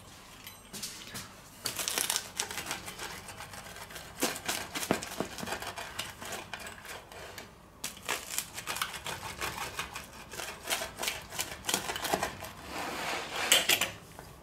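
Stainless pizza wheel rolling through a crisp, partly charred pizza crust on a wooden board: an irregular run of crunching crackles and clicks. Near the end, the slices being pulled apart by hand add more crackling.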